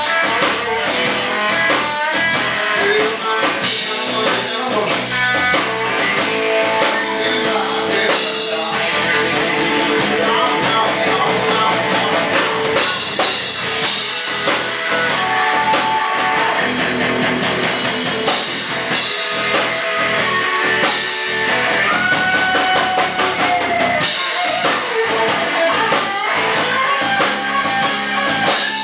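Live electric blues band: an electric guitar plays lead lines with sustained, bent notes over a drum kit keeping a steady beat.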